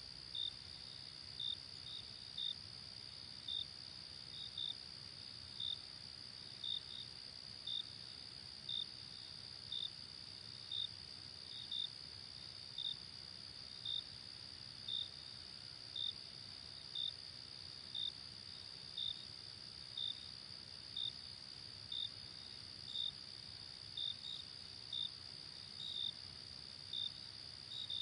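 Crickets chirping: a steady high trill from many insects, with a nearer cricket's short chirps repeating roughly once a second, sometimes in pairs.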